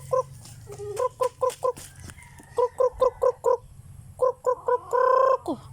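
Chicken clucking in quick runs of short, evenly spaced clucks, about five a second, with one louder drawn-out squawk about five seconds in.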